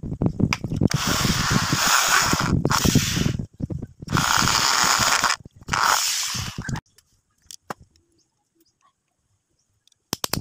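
Corded electric drill boring into a small block, run in several bursts with short pauses and stopping about two-thirds through. A few sharp clicks near the end.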